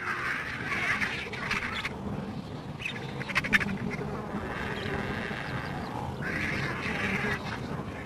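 Wild animal calls in three harsh, noisy bursts, each about a second long: one at the start, one a little past the middle, one near the end, over a steady low background.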